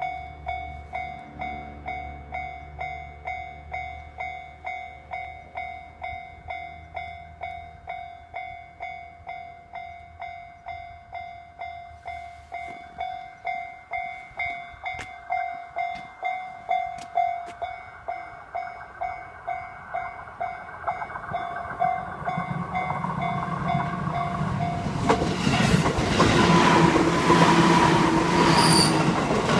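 Japanese railway level crossing alarm bell ringing about twice a second. A train comes up and runs over the crossing: its rumble grows from about twenty seconds in until it drowns the bell near the end.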